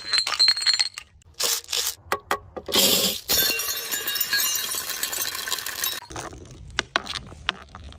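Glass bottles clinking, then a loud crash of breaking glass about three seconds in, followed by a few seconds of shards tinkling and scattering that stops abruptly. Scattered clinks follow.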